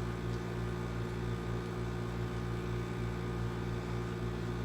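Steady, unchanging hum of a running machine, with several fixed low tones over a faint hiss: the background noise from the neighbours.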